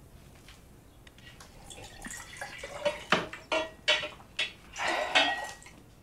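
Lemonade poured from a pitcher into a glass mason jar with drips, then several clinks and knocks as the glass jars and pitcher are handled on a tiled counter, starting about two seconds in.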